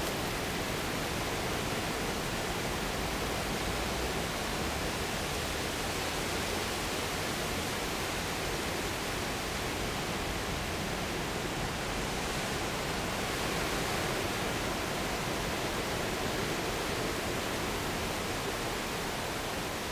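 Ocean surf: a steady rush of breaking waves washing onto the beach.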